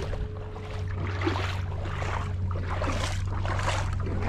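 Bare feet wading through shallow water, splashing about every half second, over a steady low rumble of wind on the microphone.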